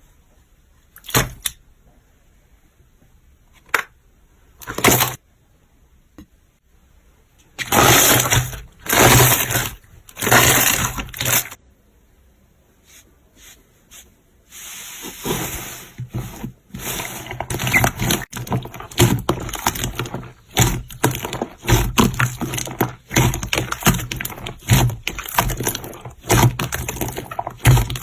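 Slime being squeezed and pressed by hand. At first a few separate pops. About eight seconds in come three longer squishing stretches. From about fifteen seconds on, a dense run of crackling pops.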